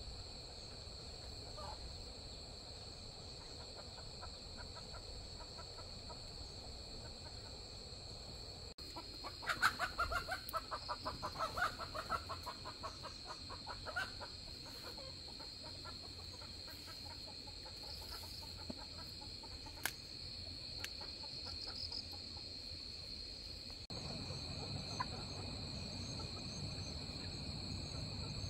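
Chickens clucking in a quick, dense run of calls for several seconds near the middle, over a steady high chirring of crickets.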